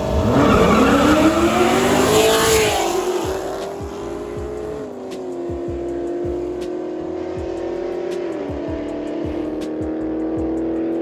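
Car engine revving up as the car accelerates, its pitch climbing steeply for the first two and a half seconds and then holding steady, with small drops in pitch about five and eight and a half seconds in.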